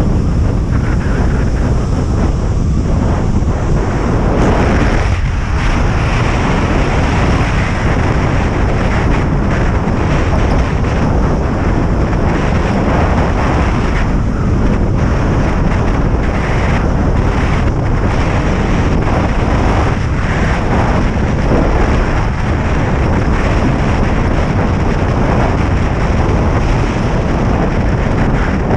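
Strong wind buffeting the microphone of a camera carried by a moving kite landboarder: a loud, steady rush with no pauses.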